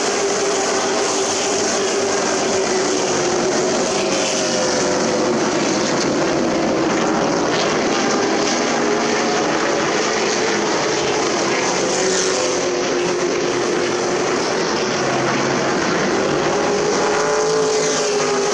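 Race trucks' engines running at racing speed, a steady loud din with several engine notes rising and falling as the trucks pass.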